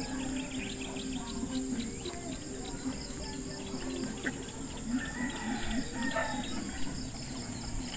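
Steady high-pitched insect chorus, with faint short chirps here and there.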